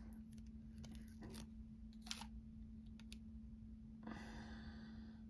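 Faint handling sounds of fingertips peeling and pressing a tiny sticker label onto a miniature plastic bottle: a few soft clicks, then a short hiss about four seconds in, over a steady low hum.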